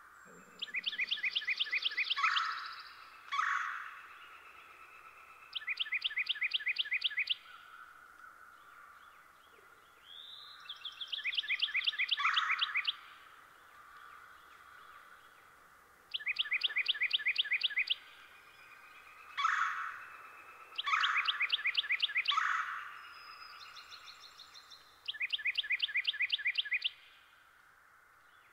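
A songbird singing the same rapid, even trill over and over, about six times, each trill lasting under two seconds and coming every four to five seconds. Sharper single call notes sound between the trills, over faint steady background noise.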